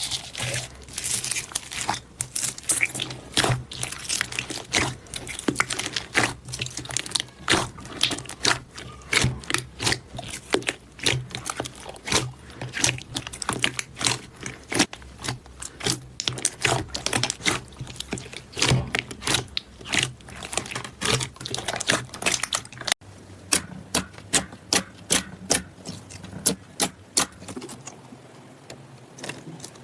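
Slime being squeezed, pressed and poked by hand, giving a steady run of crackling pops and clicks, several a second. About two-thirds of the way through the sound changes to a quicker, more even run of pops that thins out near the end.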